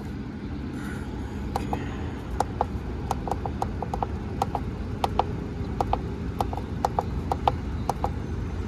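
Irregular sharp mechanical clicks, a few a second, starting about a second and a half in, over a steady low rumble.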